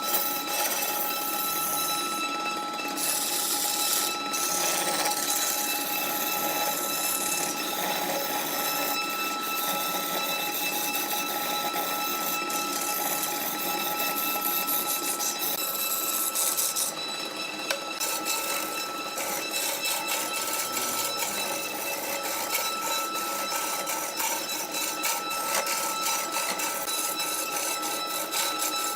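Wood lathe running with a steady high whine while a turning tool cuts the spinning wood, giving a scraping hiss with rapid fine ticking that grows denser in the second half.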